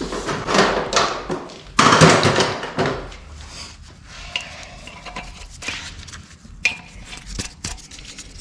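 Metal tools and parts clinking and knocking during work on a truck's front wheel hub. Two louder rushing, scraping noises come in the first three seconds, followed by scattered light clicks and clanks.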